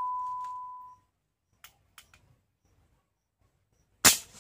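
A steady electronic beep fading out over the first second, a few faint clicks, then near the end a single sharp shot from an air gun.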